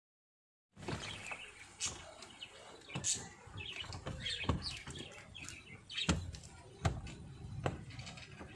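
Hard plastic knocks and clicks as an aftermarket touch-screen stereo and its dash panel are pushed and pressed into a car dashboard opening. Birds chirp in the background. The sound starts about a second in.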